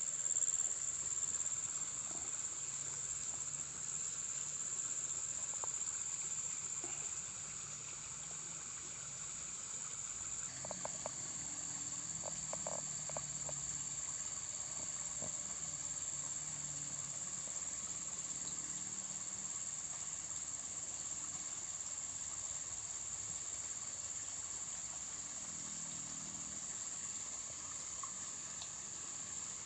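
A steady, high-pitched drone of insects, with a few faint clicks a third of the way in.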